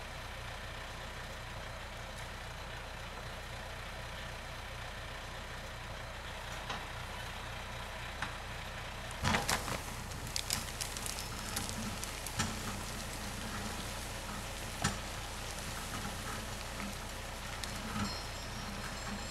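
A compact tractor's engine running steadily, powering a PTO skidding winch. From about halfway through, a run of sharp cracks, snaps and rustling as a log is dragged through tall grass and brush.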